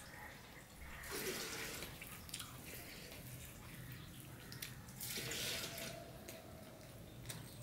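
Wet squelching of fingers mixing rice with curry on a steel plate, along with chewing. It is louder in two stretches, about a second in and around five seconds in.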